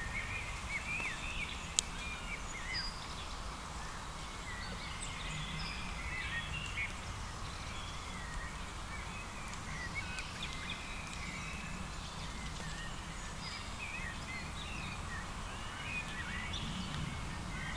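Outdoor woodland ambience: small birds chirp and sing in many short, quick calls over a steady low background rumble. A single sharp click sounds about two seconds in.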